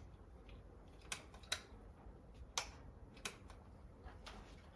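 A few faint, irregular sharp clicks and taps, four or five of them, spaced unevenly over a low background hum: small handling sounds made while working on the motorcycle.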